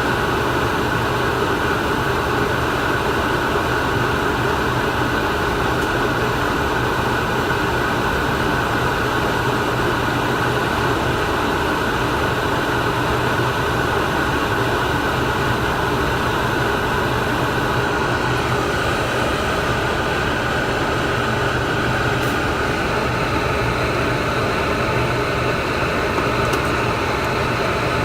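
A steady mechanical drone with an even hiss, unbroken and unchanging in loudness.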